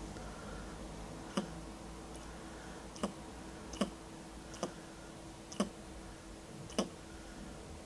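Giant rabbit hiccuping: six sharp little clicks, roughly one a second.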